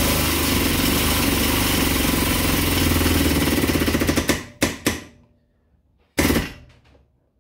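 Air-over-hydraulic pump on a 10-ton benchtop shop press running with a loud, steady hiss and rapid chatter as it drives the ram down onto a steel forming jig. It stops just after four seconds, then gives two short bursts and one more short burst about six seconds in, as the pressure is fed in bit by bit.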